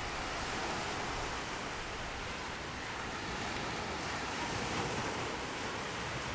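Small ocean waves breaking and washing up a sandy beach: a steady wash of surf.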